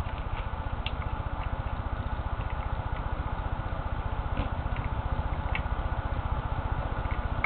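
A few faint, short clicks of the handheld's buttons being pressed while it is tested after reassembly. They sound over a steady low buzz of background noise.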